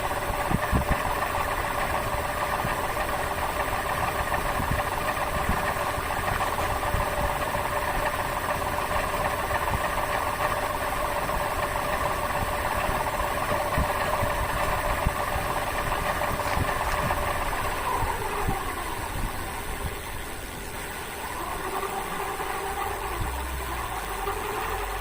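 Rear hub motor of a Duotts S26 electric fat bike spinning the rear wheel: a steady electric whine with a light rubbing from the disc brake, which still catches the pads a little. About 18 seconds in the whine drops in pitch as the wheel slows, then picks up again near the end.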